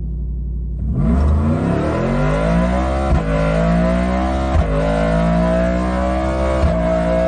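Car engine revving hard under acceleration: after a sudden change about a second in, its pitch climbs for a couple of seconds, then holds high with a few brief dips.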